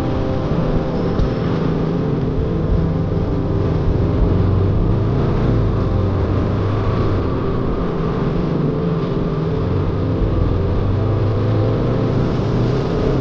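Single-cylinder 200 cc motorcycle engine running under power at a steady pace.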